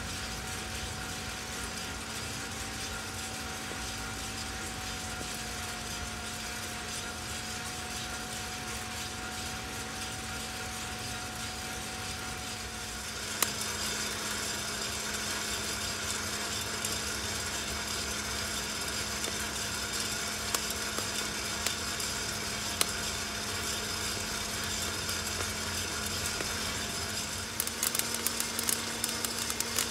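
HotTop 2K+ home coffee roaster running, its drum motor and fan humming steadily with coffee beans tumbling in the drum; the sound steps up a little shortly before halfway. Near the end a rapid run of sharp pops sets in: the beans reaching first crack.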